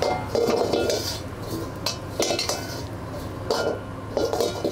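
Metal ladle clinking and scraping against a wok as oil is heated in it until it starts to smoke, several separate clinks with brief ringing. A steady low hum from the gas burner runs underneath.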